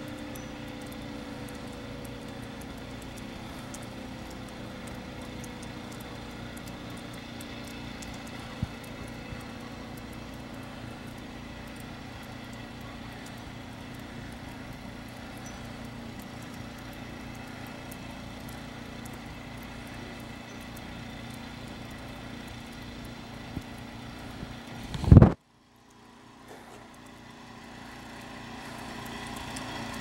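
A steady engine drone, with one loud knock about 25 seconds in and a brief moment of silence after it. Near the end a fire engine's siren wail starts to rise and grow louder as it approaches.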